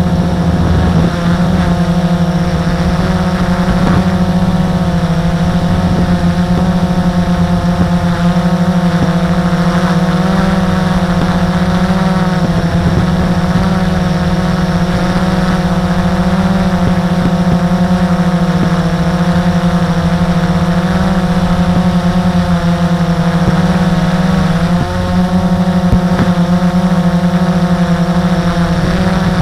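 A drone's propellers and motors buzzing steadily as it hovers, heard loud and close from the drone's own camera, with a brief dip in the hum near the end.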